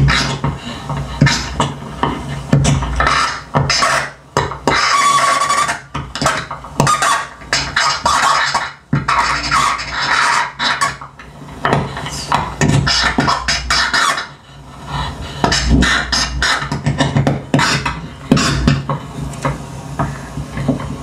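Amplified scratching, crackling and clattering from a live noise performance, with paper and small objects worked by hand over a microphone, coming in irregular stop-start bursts.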